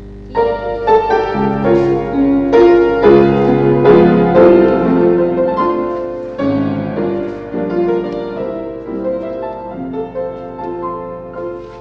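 Piano playing a class accompaniment for ballet barre work: chords and a melody begin about half a second in, fuller and louder through the middle, then softer toward the end.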